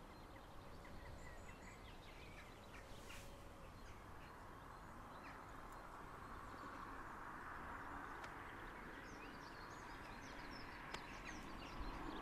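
Faint outdoor ambience: small birds chirping over a steady background hiss.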